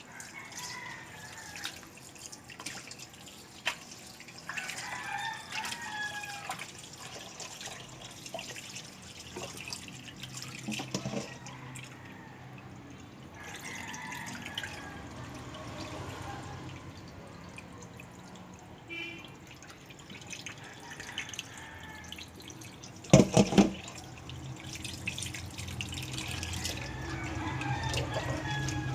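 Tap water running into a kitchen sink as raw chicken is rinsed by hand, with splashing and dripping. A brief cluster of loud knocks comes about two-thirds of the way through.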